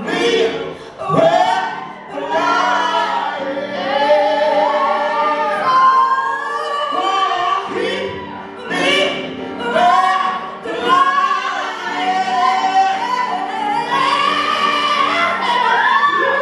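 A young woman singing a slow song, accompanied by a grand piano.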